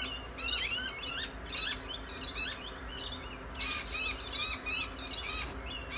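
Miner birds giving loud alarm calls: fast, repeated, harsh high notes that run on without a break. The owner takes this for a warning that a snake is about.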